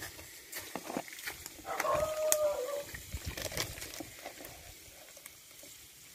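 Scattered clicks and knocks, with one drawn-out animal call of about a second, two seconds in.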